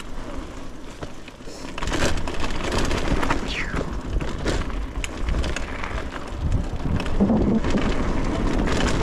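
Mountain bike riding down a dirt flow trail: wind rushing over the microphone and tyres rumbling on packed dirt, with scattered knocks and rattles from the bike. It gets louder about two seconds in.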